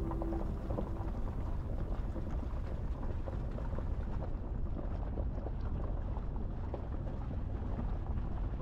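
4x4 driving over a rough, stony unsurfaced track: a steady low rumble with a constant patter of small knocks and crunches from stones and gravel under the tyres.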